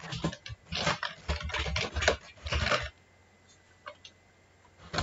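Typing on a computer keyboard: quick runs of keystrokes in the first three seconds, then only a few stray clicks.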